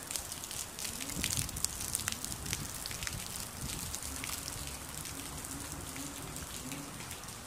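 Heavy rain falling on garden plants, soil and paving, with many sharp close drop hits, thickest in the first three seconds.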